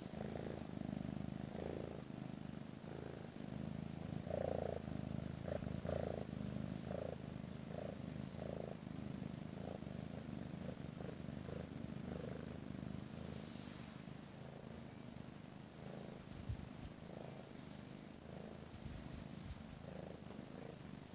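Kitten purring continuously while being stroked, a low rumble with a regular pulse about once a second.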